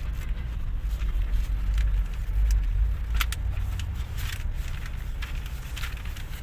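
Low rumble of a car creeping along in slow traffic, heard from inside the cabin, swelling a little midway, with a few sharp clicks.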